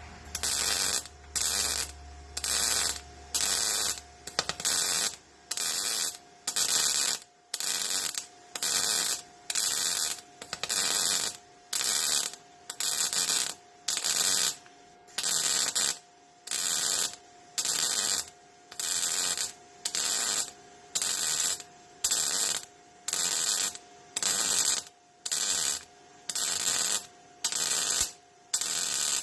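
MIG welder arc crackling on car-body steel in short stitch-weld bursts, about one a second, each lasting roughly half a second with a short pause between.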